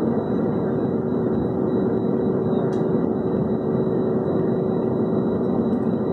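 Airliner cabin noise while taxiing: the jet engines and airflow give a steady rumble heard from inside the cabin, with a faint steady hum and a thin high whine running through it.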